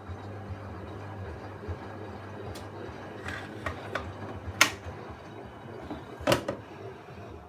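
Hoover washing machine running a boil wash: a steady low motor hum with scattered clicks, and two sharper knocks, one about halfway through and one near the end.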